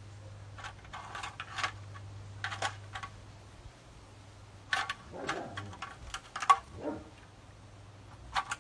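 Irregular light clicking and rattling of small hard objects in short clusters, with one sharper knock about six and a half seconds in, over a low steady hum.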